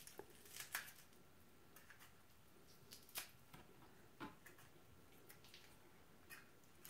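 Near silence, with a few faint clicks and soft rustles from a handheld plastic strawberry huller being worked into strawberries to pull out the hulls.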